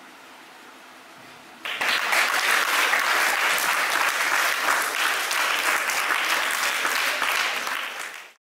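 Audience applauding, breaking out suddenly about two seconds in after faint room noise, then fading and cutting off just before the end.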